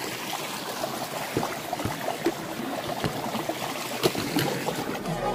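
Stream water running and trickling over rocks, a steady rush, with a few scattered clicks. Electronic music starts right at the end.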